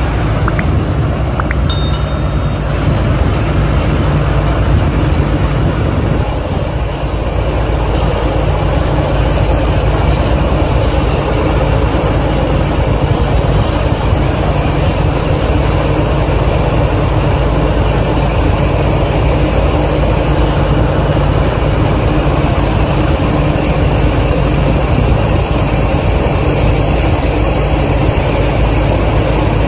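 Crawler rice combine harvester with a Hino diesel engine running steadily under load while cutting rice, with a thin, steady high whine above the engine noise.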